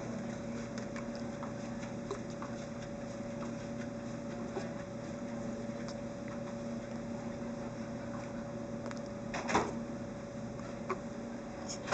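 A newborn sneezing: one short, sharp sneeze about nine and a half seconds in and another right at the end, over a steady low hum.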